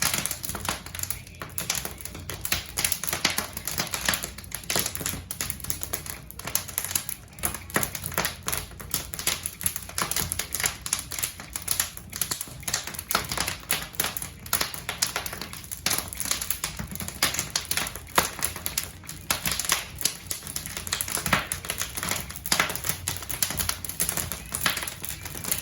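Logs burning in a fireplace, crackling with a dense, irregular run of sharp pops and snaps.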